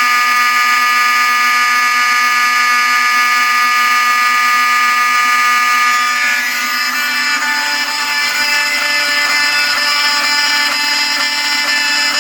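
Vintage fire alarm horns (Wheelock 7000-series and Pyrotronics 7002) sounding together in a continuous, loud buzzing blare. About six seconds in, the mix changes to a rougher, harsher buzz.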